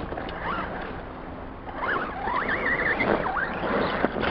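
Electric motor and gear whine of an Axial RC rock crawler, rising and falling in pitch with the throttle as it climbs a dirt bank, with quick wavering blips in the middle.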